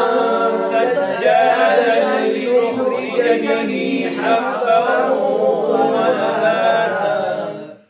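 A man's voice reciting the Quran in a slow, melodic chanting style, with long held, ornamented notes. It fades out shortly before the end.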